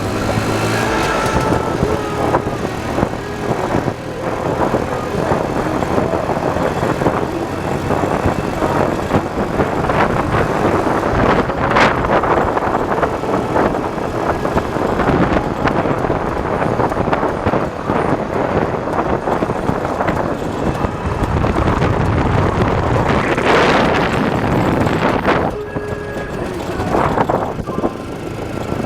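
IZh Planeta 5 sidecar motorcycle's single-cylinder two-stroke engine running steadily on the move, heavily mixed with wind and road noise.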